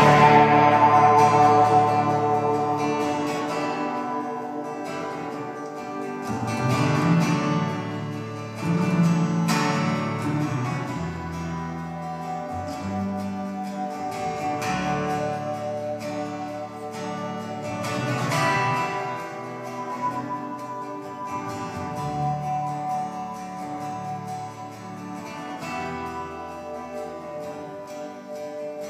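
Live instrumental passage on acoustic guitar, electric guitar and upright bass, with no singing; loud at first, then slowly quieter.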